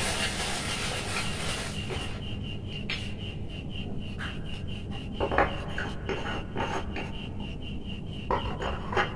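Light knocks and scrapes of a hand handling a light bulb and batten lamp holder on a work board, loudest near the end as the bulb is fitted. Under them run a steady low hum and a quick, even high ticking.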